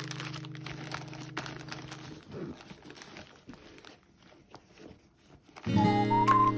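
Background music that stops about two seconds in, followed by faint scattered crinkling and crunching, then music with acoustic guitar and a whistled melody starting loudly near the end.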